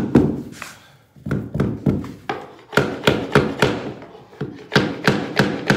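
Hammer tapping a tapping block against the edge of a luxury vinyl plank, a run of sharp wooden knocks at about three a second with two short pauses, driving the plank's click-lock joint tight.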